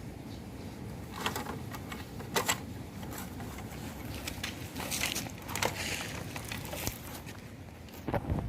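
Plastic toy vehicles scraping and knocking in sand: a scattering of short scrapes and clicks, with the loudest few near the end.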